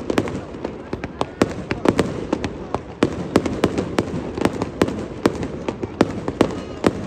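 Aerial fireworks display: rapid, irregular sharp bangs, several a second, over a continuous low rumble.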